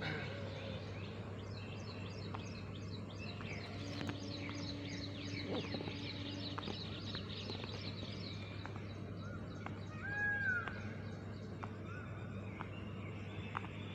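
Birds chirping continuously in quick short falling notes over a steady low hum. About ten seconds in, a single short call rises and falls.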